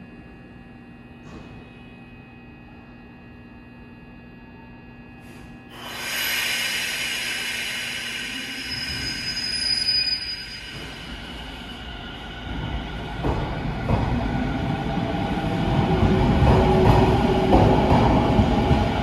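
Echizen Railway 7000-series electric train, its motors driven by a VVVF inverter, standing with a steady hum, then a sudden loud burst of hiss about six seconds in. It then starts away and accelerates past, the rumble of its motors and wheels on the rails growing steadily louder.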